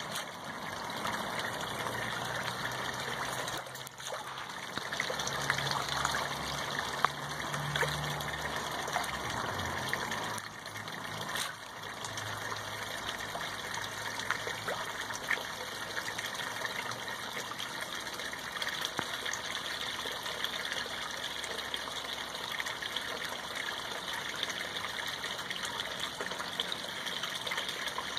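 Steady trickling and splashing of water from a koi pond's filter return, which has just been cleaned and is running.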